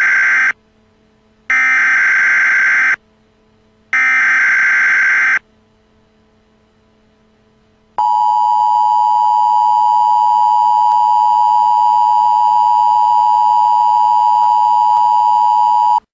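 Emergency Alert System signal: three warbling bursts of SAME header data, the digital code that starts an alert, each about a second and a half long, the first already under way. After a pause of about two and a half seconds comes the steady two-tone EAS attention signal, held for about eight seconds and cut off sharply.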